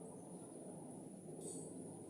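Faint background hiss with a steady thin high tone and, about one and a half seconds in, a faint brief high chirp.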